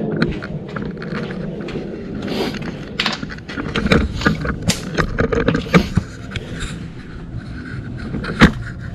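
Irregular metallic clicks and scrapes from a C-clamp being worked on a Mercedes W204 front brake caliper, its screw pressing an old brake pad against the piston to push it back into the caliper. A single sharp click stands out near the end.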